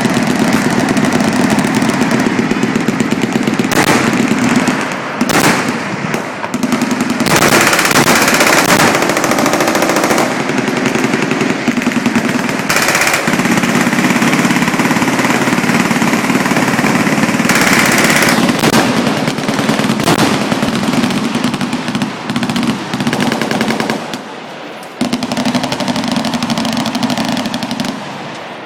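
Automatic machine-gun fire in long, nearly continuous bursts, with a short lull about three-quarters of the way through.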